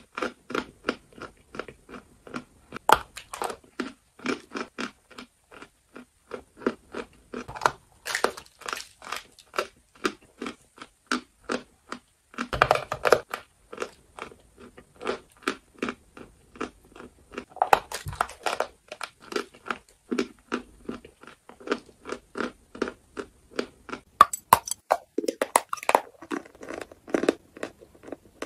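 Close-miked chewing of lumps of chalk: a quick, steady run of dry crunches, several a second, as the chalk is bitten and ground between the teeth.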